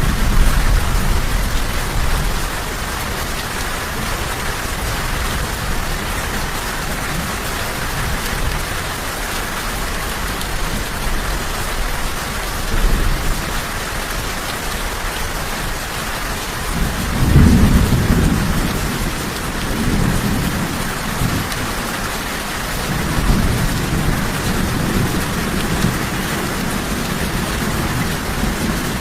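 Steady rain falling, with low rolling thunder rumbling several times through it, the loudest rumble a little past halfway.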